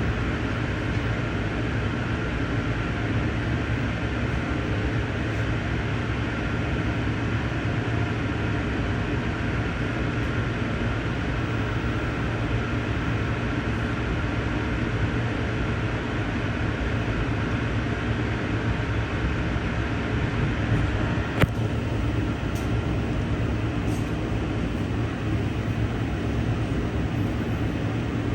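Steady rumble of an Amtrak passenger train in motion, heard from aboard, with wheels running on the rails. A single sharp click sounds about 21 seconds in, followed by a few fainter ticks.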